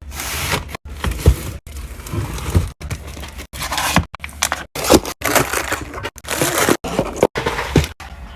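Plastic packaging crinkling and items knocking and clattering into storage containers, as in restocking. Short bursts are cut off abruptly by brief silences many times over.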